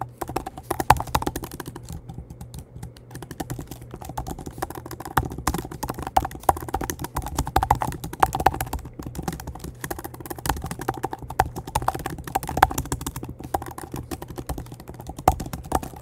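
Typing on a computer keyboard: quick, irregular keystrokes in runs with short pauses, as code is entered.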